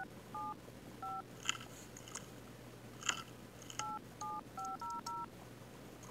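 Softphone dial-pad touch tones (DTMF) as a phone number is keyed in: two short dual-tone beeps near the start, then a quick run of six about four seconds in. A few faint clicks fall in between.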